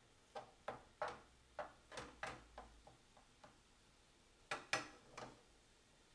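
Plastic slotted spatula knocking and scraping against a frying pan while stirring scrambled egg: a run of irregular sharp taps, then three louder knocks about four and a half seconds in.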